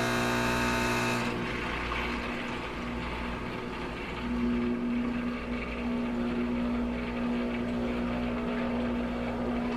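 Nespresso Vertuo Next running its first-use cleaning cycle, pumping water through the machine into a mug. A higher whirring stops about a second in, leaving a steady pump hum that grows stronger about four seconds in.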